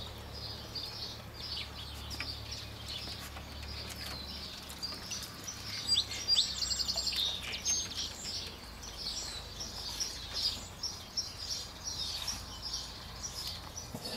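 Small birds chirping over and over, with a quick run of chirps about six seconds in.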